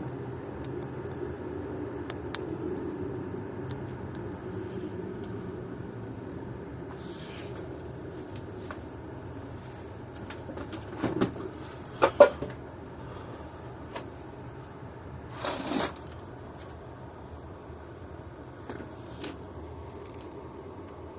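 Steady whir of the fan of a hot-air heater, with a few clicks and handling knocks around the middle.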